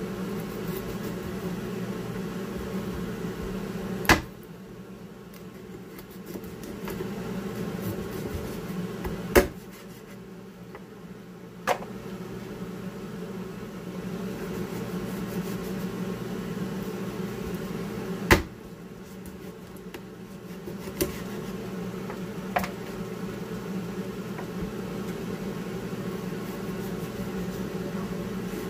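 Chef's knife chopping the claws off raw chicken feet, the blade striking a plastic cutting board in about six sharp knocks spaced a few seconds apart, over a steady low hum.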